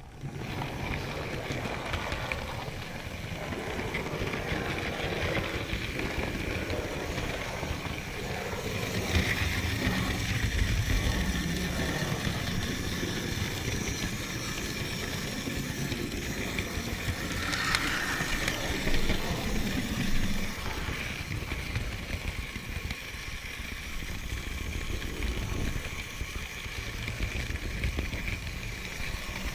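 A model railway train running along its track, heard from a camera riding on the train: a steady rumble of wheels and motor with fast clicking over rail joints and points. It starts up sharply at the beginning.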